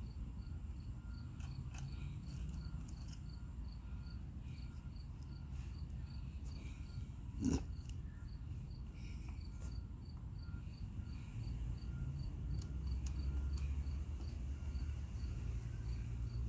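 A cricket chirping steadily, about five short high chirps every two seconds, over a low outdoor rumble, with a single sharp knock about halfway through.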